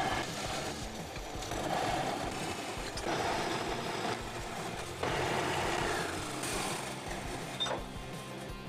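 Horizontal metal-cutting band saw running, its blade cutting through a metal bar clamped in the vise: a steady mechanical whirring rasp, with a short click near the end.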